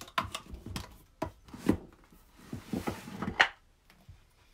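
A wooden book press and a book being handled on a wooden tabletop: a string of short wooden knocks, clicks and rubbing, the loudest knock about three and a half seconds in.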